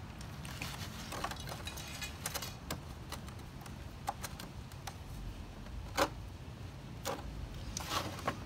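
Black plastic milk crate being tilted and handled by hand, giving scattered light clicks and knocks of hard plastic, with a sharper knock about six seconds in and a few more near the end.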